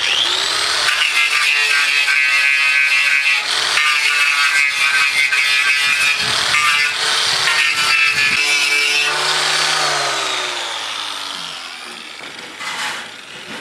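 Electric right-angle grinder with a wire rope cup brush spinning up and scrubbing rust off the steel wall of an old meat smoker canister, a steady motor whine under rough scraping. About nine seconds in it is switched off and the whine falls in pitch as the brush winds down.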